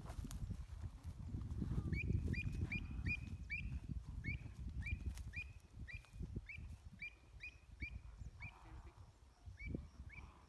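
A bird calling over and over, short sharp calls with a downward hook, about three a second, starting about two seconds in. A low rumble of wind on the microphone runs under it, fading in the second half.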